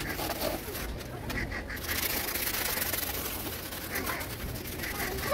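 Scouring pad scrubbing back and forth on a rusty steel motorcycle mudguard wet with water and dishwashing paste, a steady noisy rubbing, with a few short bird calls in the background.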